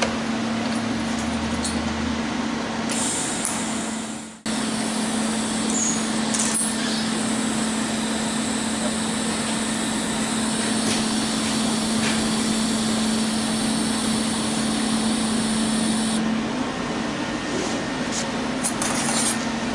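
MIG welding arc sizzling steadily while a full weld bead is run on steel sculpture-kit parts, with a steady hum under it. The arc breaks off for a moment about four seconds in, restarts, and stops about three-quarters of the way through.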